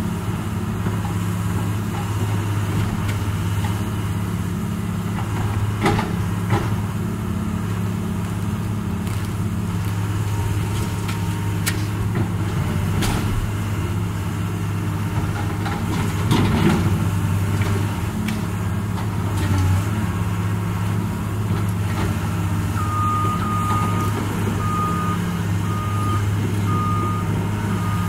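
Hydraulic excavator's diesel engine running steadily as it tears into a wooden barn, with several cracks and crashes of breaking timber, the loudest just past halfway. Near the end a backup alarm beeps repeatedly at an even pace.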